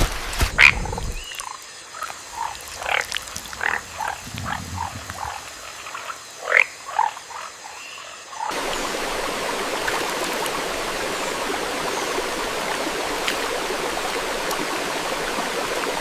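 Frogs calling in short, scattered chirps and croaks, with a few louder rising calls. About eight and a half seconds in, the sound cuts abruptly to a steady, even wash of water noise.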